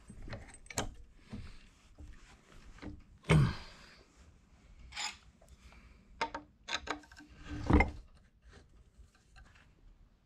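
Metal clinks, knocks and scraping from handling a differential case spreader and a dial indicator on a Dana 30 axle housing. There is a loud knock about three seconds in and a run of sharp clicks between about six and eight seconds.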